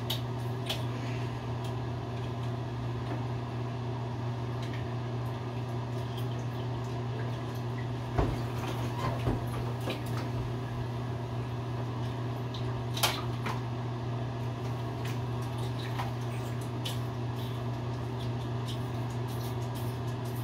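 Small splashes and clicks of plastic bath toys handled in bathwater, over a steady low electric hum, with louder knocks about eight and thirteen seconds in.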